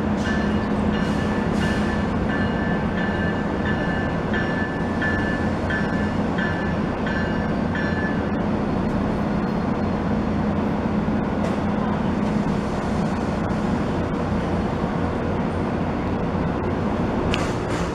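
MBTA commuter rail train arriving, its bell ringing about twice a second until it stops about eight seconds in, over the steady low drone of diesel locomotive engines.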